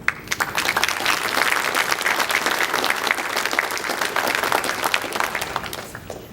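Church congregation applauding after a choir's hymn: many hands clapping. It starts suddenly and stops about six seconds in.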